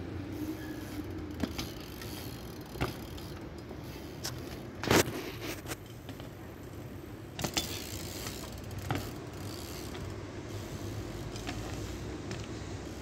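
BMX bike riding on asphalt, its freewheel hub ticking, with several sharp knocks of the bike landing and hitting the ground; the loudest knock comes about five seconds in.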